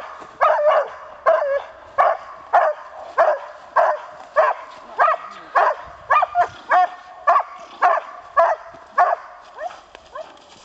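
A 13-month-old Groenendael (Belgian Shepherd) barking loudly and rhythmically, about two barks a second, without a break: the aroused barking of a young dog held back on its harness and provoked by a helper during bite work.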